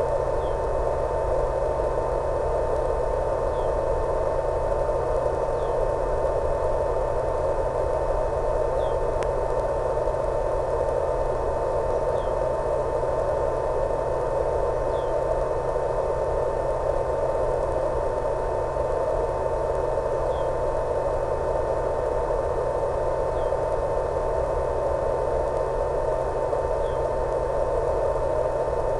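Steady radio static: an even hiss with a constant tone through it, from the audio channel of a 1.3 GHz analog FPV video receiver. It does not change at all while the plane flies.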